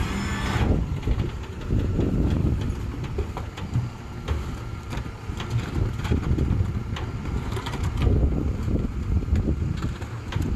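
Rear-loader garbage truck's engine idling steadily, with plastic trash cans knocking against the hopper now and then as they are emptied by hand.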